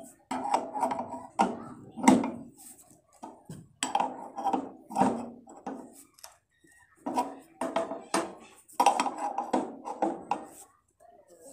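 Steel spanner clanking against the bolts and metal body of a rice huller as its new blade is tightened: a run of irregular metallic clanks, each with a brief ring, about one every half second to a second, with a short pause around six seconds in.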